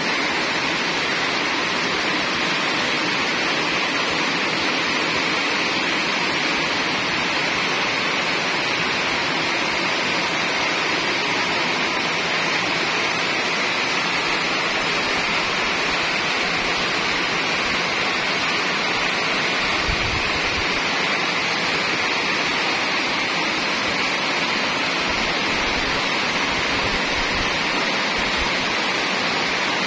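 Heavy rain pouring steadily onto corrugated metal roofs and leafy trees, an even, unbroken hiss. A few brief low rumbles come through about two-thirds of the way in and again near the end.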